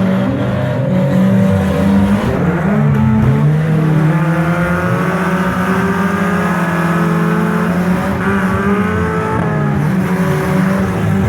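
Engines of several demolition derby cars revving, their pitches rising and falling and overlapping as the cars drive.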